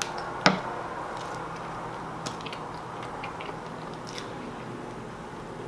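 Someone chewing a Popeyes fried chicken sandwich. There is one sharp click or crunch about half a second in and a few fainter clicks later.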